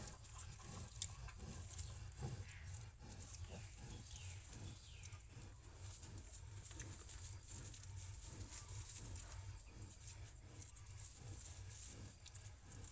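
Faint sounds of a sow and her piglets: soft rustling and shuffling with many small clicks.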